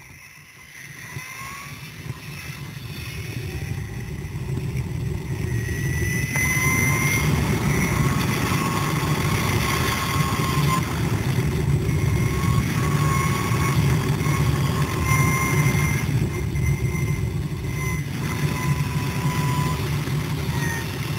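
Zipline trolley pulleys running along the steel cable: a steady rumbling whir with a thin high whine over it. It builds up over the first six seconds or so, then holds.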